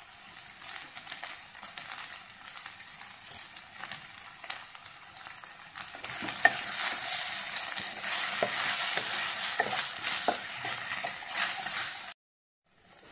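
Sliced onions and curry leaves sizzling in hot oil in a non-stick frying pan, stirred with a wooden spatula, with scattered knocks of the spatula against the pan. The sizzle grows louder about halfway through and cuts off abruptly near the end.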